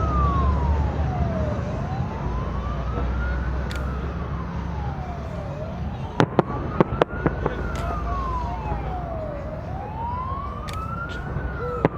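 Emergency vehicle siren wailing, slowly rising and falling about once every four seconds. Several sharp firecracker bangs come in quick succession just past the middle and once more near the end, over a low outdoor rumble.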